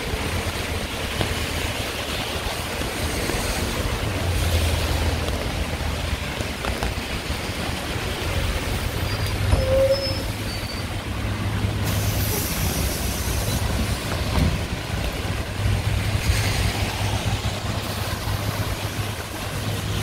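Street traffic in the rain: vehicle engines running with a steady low rumble under an even wash of rain and wet-road noise, swelling a couple of times as vehicles pass.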